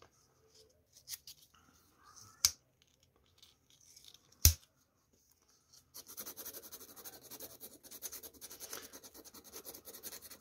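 Sandpaper rubbed in quick back-and-forth strokes over the wooden handle of an old Okapi folding knife to smooth out a chip, starting about six seconds in. Before that, two sharp clicks, the second one the loudest.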